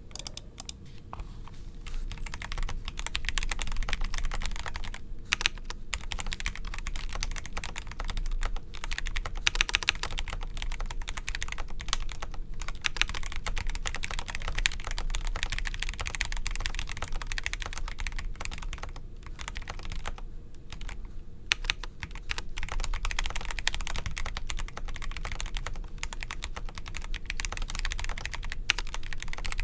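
Typing on a Feker Alice 80 mechanical keyboard with stock Gateron Pro Yellow linear switches and a polycarbonate plate: a fast, continuous stream of key clacks, pausing briefly a few times.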